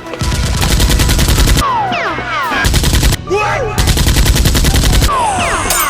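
Automatic gunfire sound effect in three rapid bursts, the first and last over a second long, with short falling whistles between and after the bursts.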